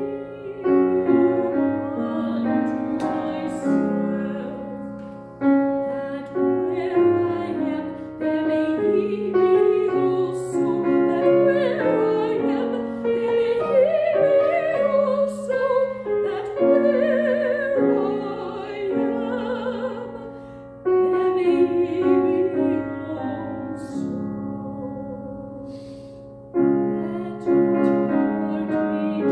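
A woman singing in a classical style with vibrato, accompanied by a grand piano.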